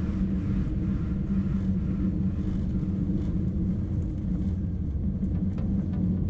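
Steady low rumble of an Airbus A320 heard from inside the passenger cabin: engine and airframe noise with no change in level.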